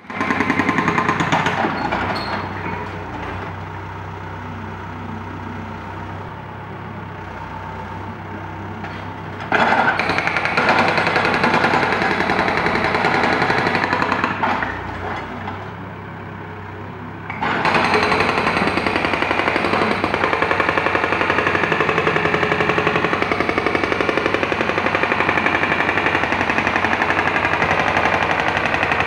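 Jackhammer running in rapid, continuous strokes. It is loud in long runs, with two quieter spells, one early on and one a little past the middle.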